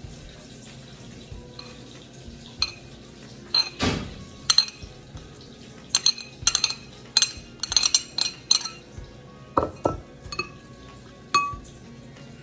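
Metal spoon clinking and scraping against ceramic plates and a bowl as chopped fern shoots and tomatoes are tipped and spooned into a salad bowl. A quick run of sharp, ringing clinks in the middle, with a few more near the end.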